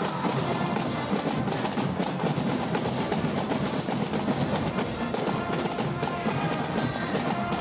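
Marching band playing on the march: trumpets, mellophones and saxophones over a busy drum beat.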